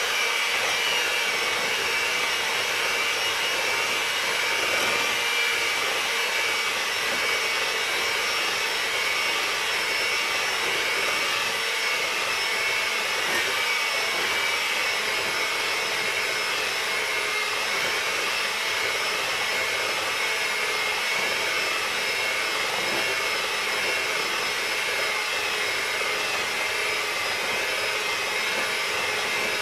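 Electric hand mixer running steadily with a high motor whine, its beaters whipping butter, powdered sugar and eggs into a filling.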